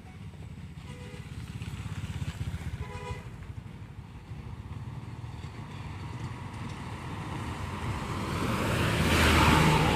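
Roadside traffic: a steady engine rumble with two short horn beeps about one and three seconds in, then a heavy vehicle growing louder as it approaches and passes, loudest near the end.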